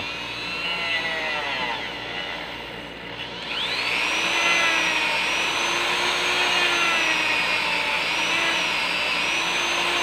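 Small handheld rotary tool with a thin cut-off disc grinding into a plastic figure neck connector: a high motor whine that wavers in pitch as the disc bites, then rises and gets louder about three and a half seconds in and holds steady.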